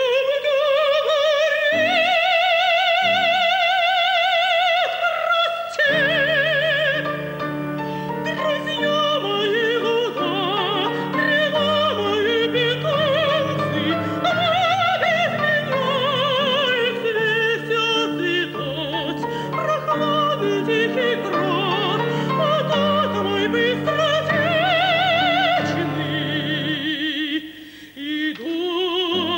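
Classical soprano-range operatic singing with wide vibrato. It opens with a long held high note of about five seconds, then moves into quick running passages over sustained low instrumental accompaniment, with a brief dip near the end.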